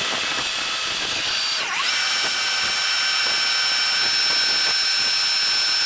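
A steady, high-pitched mechanical whine from a motor-driven machine. About one and a half seconds in it dips briefly in pitch, then rises and holds a slightly higher pitch.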